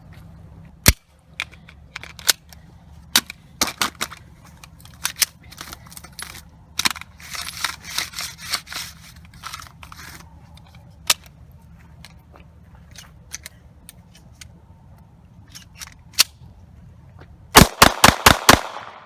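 Gunfire and pistol handling. A single loud sharp shot comes about a second in. Scattered clicks and metallic clatter follow. Near the end comes a rapid string of about six loud sharp reports within a second.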